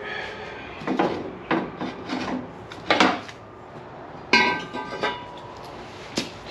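A run of knocks and clanks from metal parts and tools being handled, with a loud clank about four seconds in that rings briefly, and a sharp click near the end.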